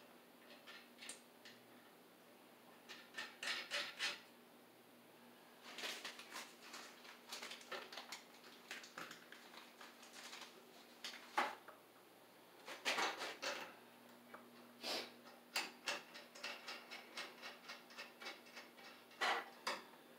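Irregular metallic clinks, knocks and scrapes of tools and parts being handled while a boiler circulating pump is fitted onto its piping, with a sharper knock about halfway through.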